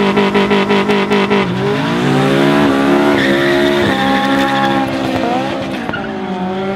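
A car engine revving hard and held high, with its tyres squealing and skidding on the asphalt as the car slides through a street trick. A steady high-pitched tyre squeal comes in about three seconds in and carries on, with the pitch of the engine and squeal shifting as the car turns.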